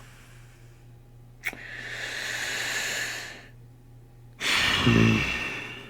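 A man breathing in deeply, then letting out a long, louder sigh with a bit of voice in it, close to the microphone. A short click comes just before the in-breath.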